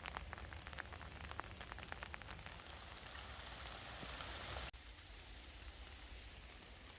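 Rain falling, with many separate drops ticking close by. About two-thirds of the way through it cuts abruptly to a quieter, more even hiss of rain.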